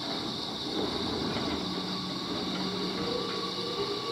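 JR Kyushu 415 series 100-subseries (steel-bodied) electric multiple unit starting to pull away from a stop. A low steady motor hum comes in about a second and a half in, and a higher tone joins near the end.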